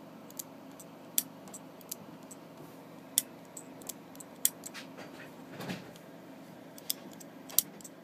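Old garage door opener magnetic relay (24 V AC coil) being worked back and forth by hand, its armature and contacts snapping open and shut in sharp metallic clicks at irregular intervals. The clicking works freshly applied oil into the relay's sticking pivot points.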